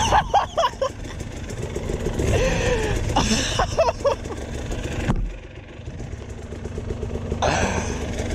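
KTM dirt bike engine idling, with scattered knocks and rustles over it; the sound drops sharply about five seconds in.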